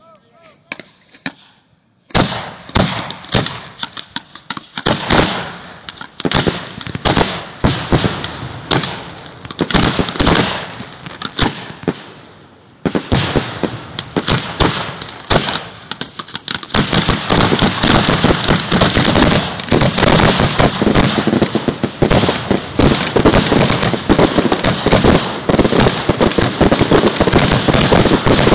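Fireworks grand finale at close range: mortar tubes launching aerial shells in rapid succession, launch thumps and shell bursts overlapping. It starts about two seconds in, drops briefly near the middle, then thickens into an unbroken barrage for the last third.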